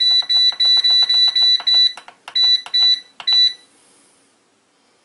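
Electronic beeps from a food dehydrator's digital control panel, one short high-pitched beep with a click for each button press as the temperature and timer are set. A quick run of about nine beeps comes first, then a short pause, then three more, and the beeping stops about three and a half seconds in.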